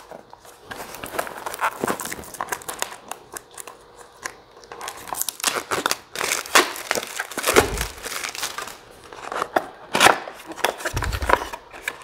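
Cardboard and plastic packaging being handled and opened: crinkling, rustling and scraping of card and a plastic bag, with a couple of dull bumps about two-thirds through and near the end.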